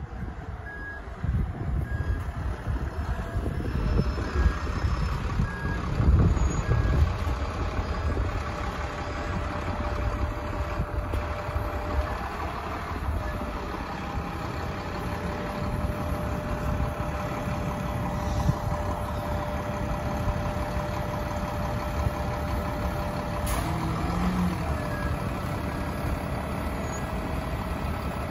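Diesel engine of a GO Transit Alexander Dennis Enviro500 double-decker bus pulling in and then running at a standstill: a deep rumble, loudest as it draws alongside, under a steady whine. A short beep repeats about once a second during the first eight seconds, and a brief air hiss sounds about 23 seconds in.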